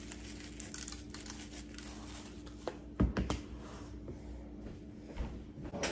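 Seasoning shaken from a shaker over a foil pan of cut potatoes: fine pattering ticks and a light crinkle of the foil. A dull thump comes about three seconds in as something is set down.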